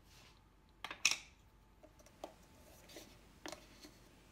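A few short clicks and clinks of kitchen utensils and containers being handled, the loudest about a second in.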